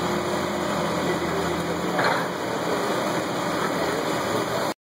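Caterpillar 345B hydraulic excavator's diesel engine running steadily as it works, with a brief louder noise about two seconds in. The sound cuts off suddenly near the end.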